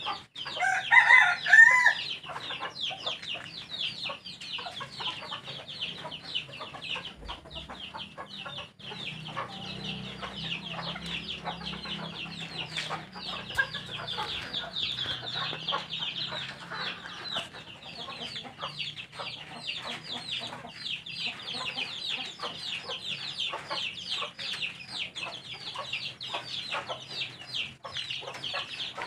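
Chickens clucking and peeping without a break, with one loud call about a second in.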